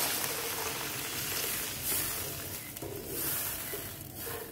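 Hot pan of frying crab and masala sizzling as water is poured in, the sizzle dying away as the water cools the pan. A wooden spatula stirs the watery mix near the end.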